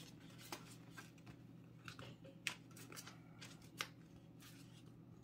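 Faint crinkling and sharp little ticks of folded paper being handled as fingers pull the folds of an origami boat apart and pinch its corners into shape, over a low steady hum.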